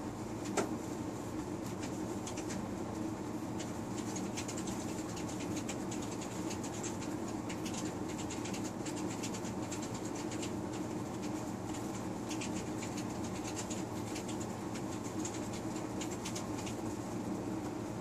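A cat lapping and playing at a stainless steel bowl of ice water, making many small, irregular clicks and taps, with one sharper clink about half a second in. A steady low hum runs underneath.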